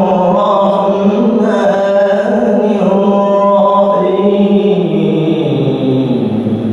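A male qari reciting the Quran in melodic tilawah style, one voice drawing out long held notes that bend and glide in pitch. Near the end the melody steps down to a lower held note.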